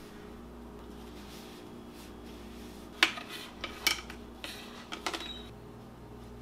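Chopsticks clicking against a glass jar and a ceramic bowl while minced garlic is scooped out: a handful of sharp clinks starting about three seconds in, the first the loudest, over a faint steady hum.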